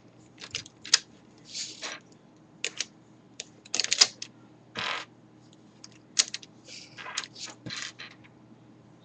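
Plastic pieces of a V-Cube 5 puzzle cube clicking and clattering as they are handled and fitted, in irregular sharp clicks and short scraping rattles.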